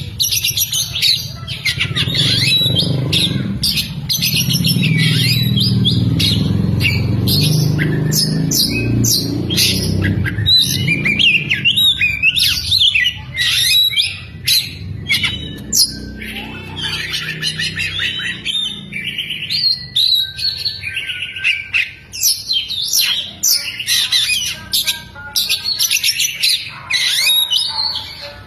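Oriental magpie-robin singing a fast, loud, chattering song of sharp chirps, trills and squawks, its repertoire filled with mimicked lovebird calls. A low rumble runs beneath the song for roughly the first half.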